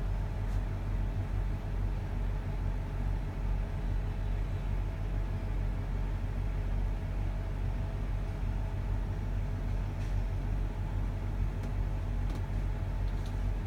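Steady low mechanical hum, like a motor or appliance running, unchanging throughout.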